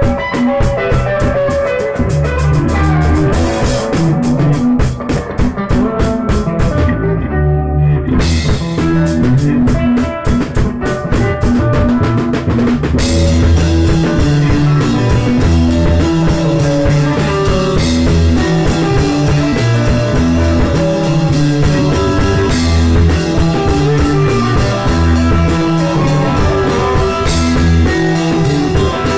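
Rock music with drum kit and guitar, played at a steady beat; the cymbals and high end drop out for about a second around seven seconds in before the full band comes back.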